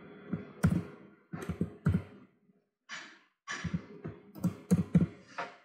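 Computer keyboard being typed on in short clusters of keystrokes, with sharp clicks and dull thumps.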